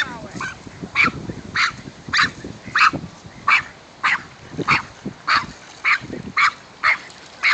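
A small dog barking steadily and rhythmically, a short yap about every half second.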